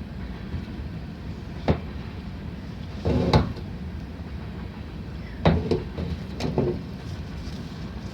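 A few knocks and scuffing thumps, the loudest about three seconds in, over a steady low rumble.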